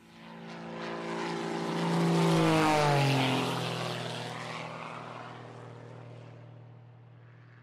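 An aircraft flying past: engine noise swells to a peak about two and a half seconds in, its pitch drops as it passes, and it fades away slowly.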